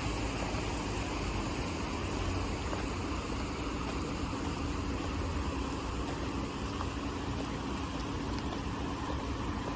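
Steady outdoor rushing noise with a low rumble and a faint steady hum underneath.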